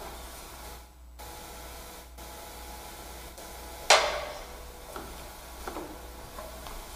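Offering plates being handled: one sharp clatter with a short ring about four seconds in, then a few softer knocks, over a faint steady hum.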